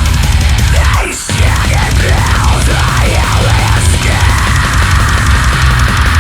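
Loud background music. It drops out briefly about a second in, then returns with swooping pitch glides before settling into a steady held tone.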